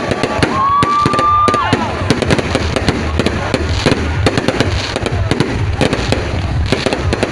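Fireworks going off in rapid succession, a dense run of bangs and crackles with no break. A single held high tone sounds for about a second near the start.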